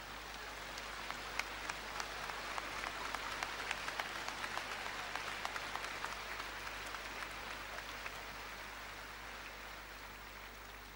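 Arena audience applauding the end of a skating program, with single claps standing out. The applause swells over the first few seconds and then slowly dies away.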